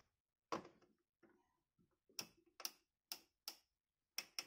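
Rotary speed-selector knob of a Havells Stilus mixer grinder being turned by hand, clicking through its detent positions with the motor off: a louder knock about half a second in, then a run of short sharp clicks about two a second.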